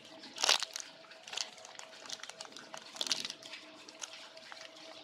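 Crinkling and rustling handling noise with small scattered clicks, louder twice: about half a second in and about three seconds in.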